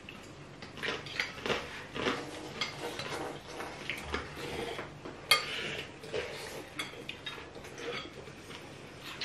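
Spoons, forks and chopsticks clinking irregularly against ceramic noodle bowls as several people eat, with one sharper clink about five seconds in.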